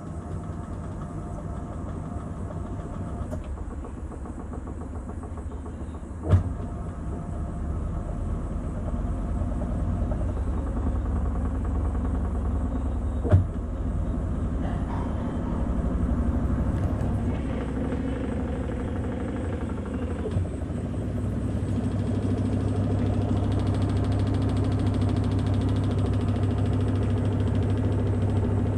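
Panasonic NA-F70G5 top-loading washing machine on its spin cycle, the tub spinning with a steady motor hum that grows louder as it speeds up and deepens about 20 seconds in. Two sharp clicks come at about 6 and 13 seconds.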